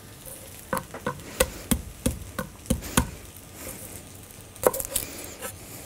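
Chef's knife chopping garlic cloves on a wooden cutting board: a run of sharp knocks about three a second, then a pause and two more near the end.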